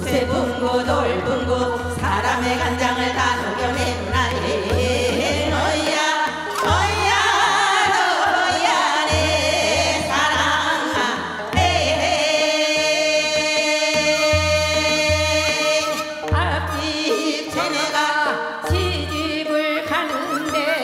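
A woman singing Seodo sori, the Korean folk song of the western provinces, in a bending, ornamented line with a long held note in the middle, over a steady low beat accompaniment.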